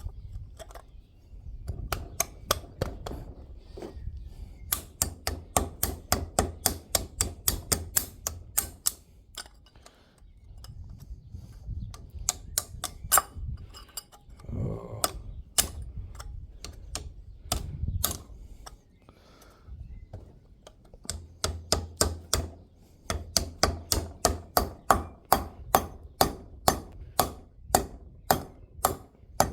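A hammer tapping a new part into a wheel hub: runs of sharp metal strikes, about two or three a second, with brief pauses between runs. The blows come harder and louder near the end.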